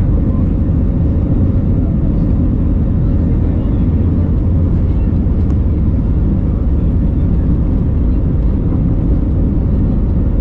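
Steady cabin noise inside an Airbus A321-200 climbing after takeoff: a loud, even rumble of engines and airflow that does not change in level.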